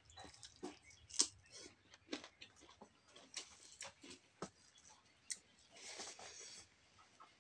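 Eating sounds of a person eating rice and curry by hand: irregular small clicks and smacks of chewing and mouth noises, with fingers working rice on a steel plate. Near the end a longer soft rushing sound comes as a handful is put into the mouth.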